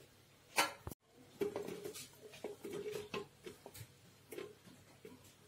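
Chopped star fruit pieces pushed off a plate and dropping into a glass blender jar: a string of soft, irregular taps and knocks.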